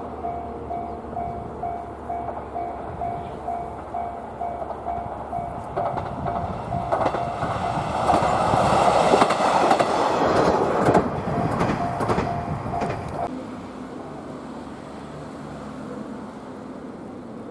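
A JR West KiHa 120 single-car diesel railcar approaches and passes, its engine and wheels growing loud, peaking with a run of sharp clacks from the wheels over rail joints. Through this a level crossing bell dings about twice a second, and stops about 13 seconds in.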